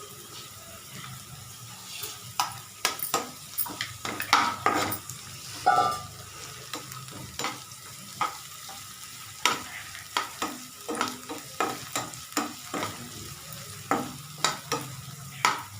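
Spatula stirring chopped vegetables frying in oil in a pan: irregular scrapes and taps against the pan over a steady sizzle.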